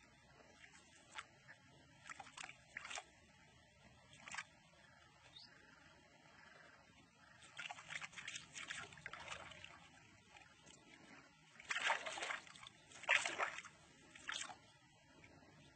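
Faint, scattered splashing in shallow water as a line is dragged through it, with a louder pair of splashes about three-quarters of the way through.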